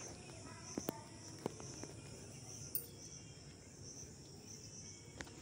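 Insects chirping steadily outdoors, a high chirp that pulses evenly, with a few faint clicks.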